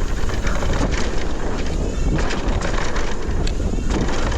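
Wind buffeting the camera microphone as a mountain bike rides down a dirt trail, with a steady low rumble and scattered knocks and rattles from the bike over rough ground.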